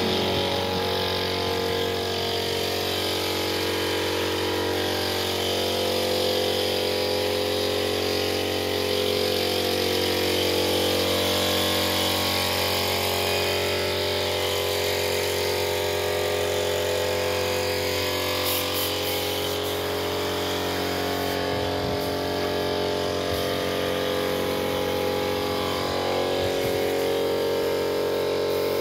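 A motor or engine running steadily: a continuous even hum with a stack of steady tones.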